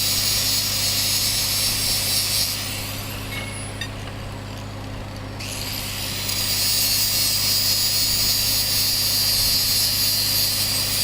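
A handheld power tool running at high speed with a steady high whine. About two and a half seconds in it winds down, then spins back up after about three seconds and runs on.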